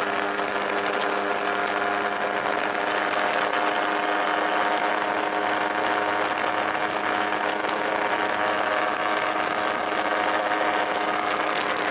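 Ultralight aircraft's engine and propeller running at high power during the takeoff roll, a steady loud drone over a hiss of rushing air.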